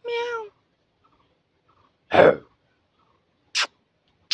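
Rhesus macaques vocalizing: a short pitched call that falls slightly, then about two seconds in a loud, harsh, cough-like burst, and a brief hissy burst near the end.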